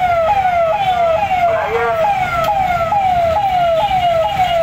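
Vehicle siren sounding a fast repeating falling wail, close to three downward sweeps a second, over a low rumble of engines.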